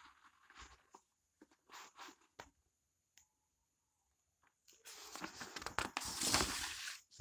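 Paper pages of a book being handled and turned: a few short scuffs of paper in the first couple of seconds, then a longer, louder rustle of a page being turned over about five seconds in.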